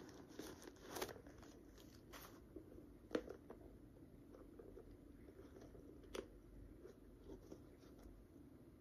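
Faint handling noises of a leather crossbody bag and its metal hardware as it is opened: a few light clicks, the sharpest about three seconds in.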